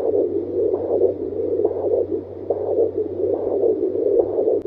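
Angel Sounds handheld fetal Doppler on a pregnant belly, playing pulsing blood-flow sounds through its speaker: a whooshing noise that swells in rhythmic pulses a little under a second apart, over a steady electrical hum.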